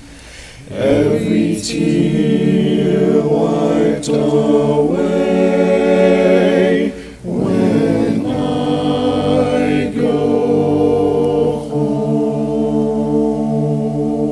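A cappella hymn sung in close harmony by layered men's and a girl's voices, holding long sustained chords. The voices come in about a second in and break briefly about seven seconds in.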